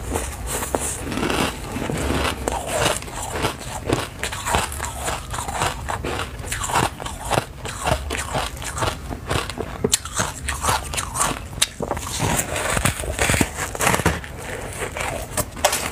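A person biting and chewing a crumbly food close to the microphone: a dense, irregular run of crunches and crackles.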